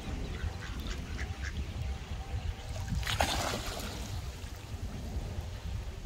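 Mallard ducks quacking among other waterfowl on open water, with short scattered calls. About three seconds in there is a brief, louder rush of splashing.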